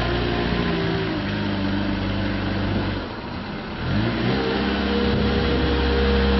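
JCB 515-40 telehandler's diesel engine running: the revs drop about a second in, sink lower around three seconds, then rise quickly just after four seconds and hold at a steady higher speed.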